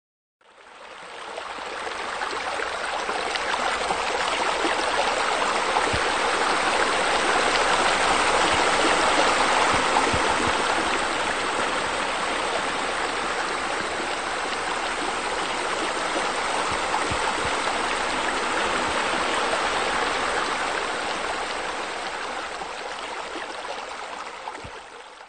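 Steady running, splashing water, fading in at the start and fading out near the end.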